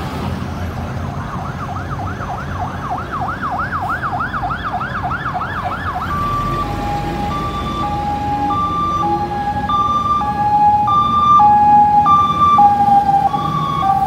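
Ambulance electronic siren, first on a fast up-and-down yelp of about three sweeps a second, then switching about six seconds in to a two-tone hi-lo, high and low notes alternating roughly once a second. It gets louder as the ambulance draws near, loudest near the end, over steady road traffic.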